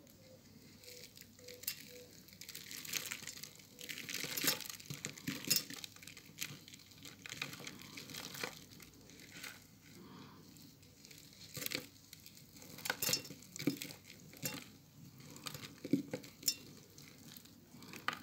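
Balls of pressed soap crumbs being squeezed and crushed by hand, crumbling into powder with irregular crunchy crackles that come in uneven clusters, louder bunches about a third of the way in and again later.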